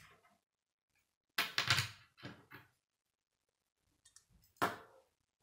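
Plastic K'nex pieces being handled: short clattering rattles about a second and a half and two and a half seconds in, then one sharp plastic click near the end, as a piece is snapped onto the model.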